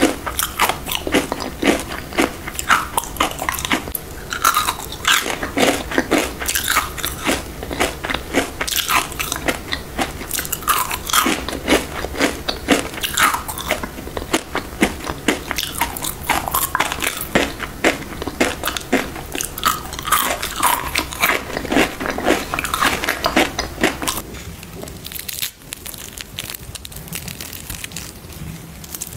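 Close-up crunching as flavored ice sticks (basil seed ice) are bitten and chewed, with many sharp crunches a second. About 25 seconds in, the crunching stops and only quieter, softer sounds remain.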